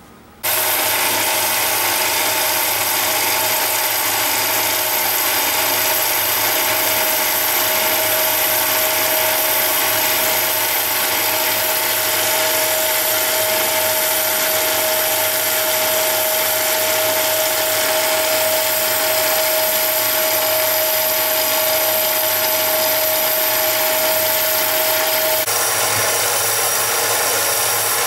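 Mini lathe running while turning a brass rod: steady motor and gear whine with machining noise. The whining tone drops out about 25 seconds in while the machine noise goes on.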